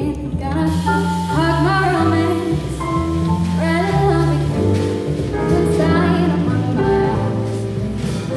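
Female jazz vocalist singing into a handheld microphone, backed by a piano, double bass and drums trio. The double bass walks beneath the voice, one note about every half second.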